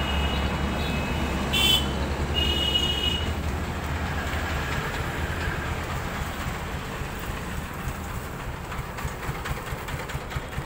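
Mahindra Novo 605 DI tractor's diesel engine running steadily, its deep hum easing about four and a half seconds in. A few short high squeaks or chirps sound over it in the first three seconds.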